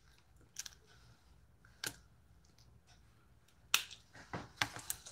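Cooked blue crab shell cracking and snapping between the fingers as the meat is picked out: a few sharp clicks, spaced out at first, then a quicker run of them from a little before four seconds in.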